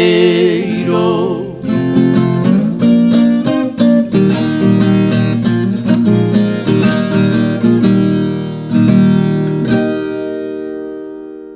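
Caipira country music: a male voice holds the last sung word, then a plucked and strummed acoustic string instrumental runs on and ends on a chord that rings out and fades away near the end.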